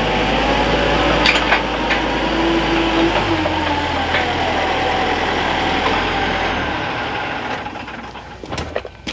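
A lift's engine running, with a whine that rises and falls as it works, dying away about seven seconds in. A few sharp clicks come while it runs, and a short cluster of sharp knocks comes near the end.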